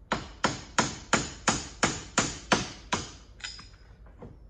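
Hand hammer striking metal nine times in a steady rhythm, about three blows a second, then one lighter tap: driving the bolt through the Club Car DS front leaf spring eye and its tight new bushing.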